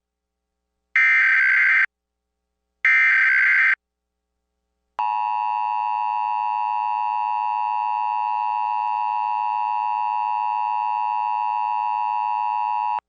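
Emergency Alert System encoder tones: two SAME header data bursts, each a buzzy warbling burst about a second long with about a second between them, then after a pause of about a second the EAS attention signal, a steady two-tone beep (853 and 960 Hz) held for about eight seconds that cuts off sharply. They mark the start of a nationwide EAS test alert.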